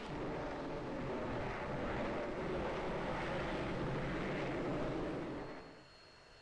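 Steady jet engine and airflow noise in a fighter cockpit recording. It drops off sharply about five and a half seconds in, leaving a faint high steady tone.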